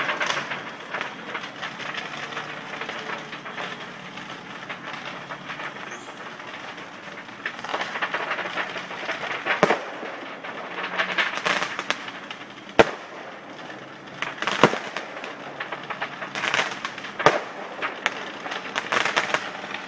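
Stored fireworks going off in a burning fireworks factory: a steady crackle with spells of rapid popping and several sharp single bangs, the loudest about thirteen seconds in.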